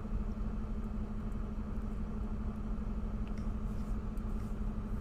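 Steady low mechanical hum with a constant tone and an underlying rumble, unchanging, with a few faint ticks.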